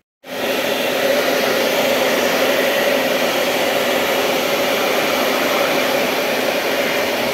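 Hair dryer switched on right away and running steadily, a loud even rush of air with a motor hum, blowing hot air onto a TV's power supply board. This is the heating stage of a thermal-shock test to find which electrolytic capacitor is failing.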